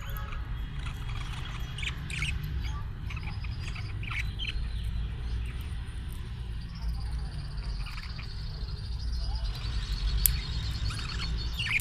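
Short, high chirps from a pihuicho, a small Amazonian Brotogeris parakeet, scattered through the first few seconds and again near the end, over a steady low hum, with one sharp click about ten seconds in.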